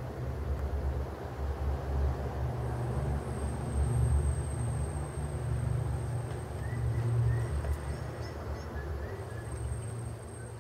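Wind buffeting the microphone: a ragged low rumble that swells and fades in gusts. A thin steady high whine sits above it, and a few faint short chirps come in the second half.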